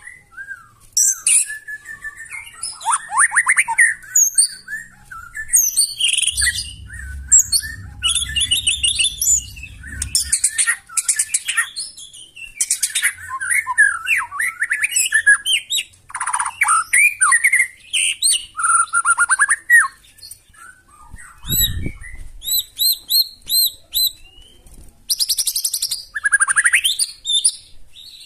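White-rumped shama (murai batu) singing a long, varied song of fast trills, whistled glides and harsh rasping notes in quick phrases with short gaps. A low rumble runs for a few seconds from about six seconds in, and a brief dull thump comes about two-thirds through.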